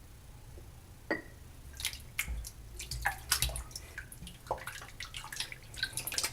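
Shaving soap lather being worked, giving irregular wet crackles and small clicks, some louder than others.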